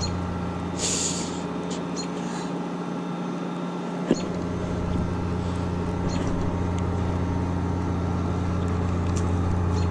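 Steady low electric hum of a boat's trolling motor. It eases off for the first few seconds, then comes back fuller with a short click about four seconds in.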